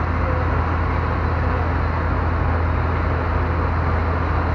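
River ferry's engine running with a steady low drone under an even rushing of water and air.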